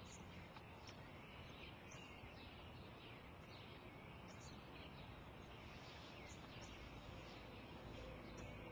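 Faint birdsong: small birds chirping in short, repeated calls over a low, steady outdoor background noise.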